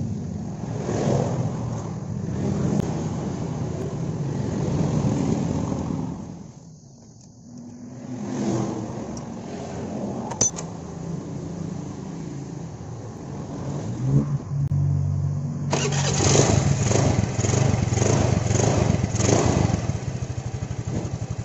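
Honda Vario 110 carburettor scooter's electric starter cranking and the engine catching about 15 seconds in, then running and revved with a pulsing rhythm. The starter now turns the engine over at once instead of only clicking, its fault having been a bad earth on the starter brushes. Steady mechanical background noise runs before the start.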